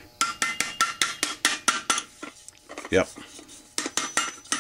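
A quick, irregular run of sharp metallic clicks and clinks, several a second, from metal parts knocking against each other.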